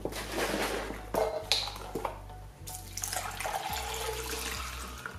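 Chicken stock being poured, the liquid splashing and trickling, with a few light clicks in the first two seconds.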